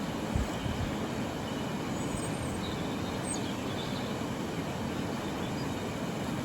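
Running river water: a steady, even rush, heaviest in the low end, with faint high chirps a couple of times midway.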